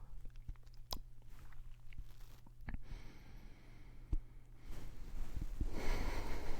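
Close-miked handling noise from a pillow and microphone mount: scattered small clicks and soft rustling, with a longer, louder swell of soft noise starting about five seconds in.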